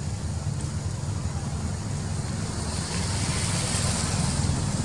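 A steady low engine rumble, with a hiss growing louder about three seconds in.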